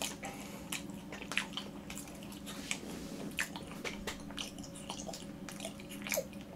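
Close-miked chewing of a soft macaron: irregular wet mouth clicks and smacks.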